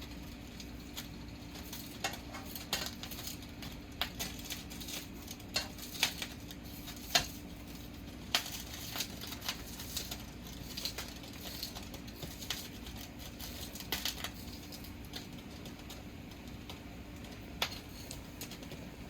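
Light clicks and taps of kitchen prep work, irregular and scattered, the sharpest about seven seconds in, over a steady low hum.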